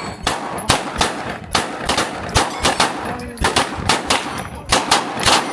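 A rapid, irregular string of about a dozen pistol shots, each a sharp crack with a short echo, spaced roughly a third to two-thirds of a second apart.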